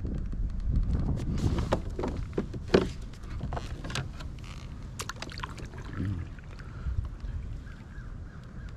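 Light knocks and clicks of fishing gear being handled in a plastic fishing kayak, over a steady low rumble, with one sharper click about three seconds in.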